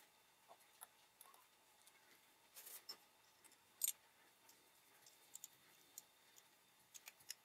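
Small hand tools and gas blowback pistol parts handled on a wooden board: scattered faint clicks and a brief scrape, with one sharper click just before four seconds in.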